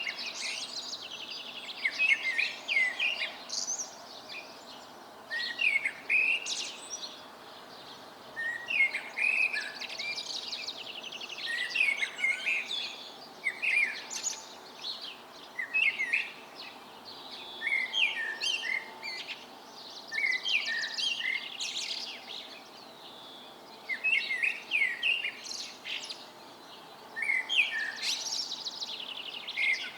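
Several songbirds singing in a dawn chorus: short song phrases come every couple of seconds, many ending or built on fast trills, against a faint steady background.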